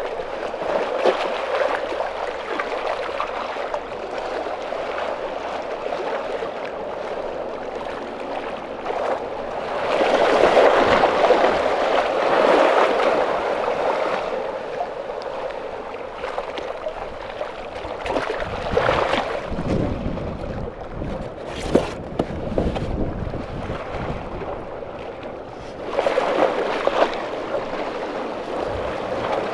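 Small waves washing and splashing against the boulders at the waterline, swelling louder several times. A single sharp click a little past the middle.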